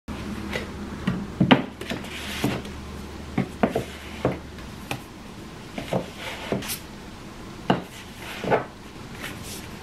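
Books being slid into a row on a bookshelf: a string of light knocks as they tap against each other and the shelf, with rubbing and scraping in between.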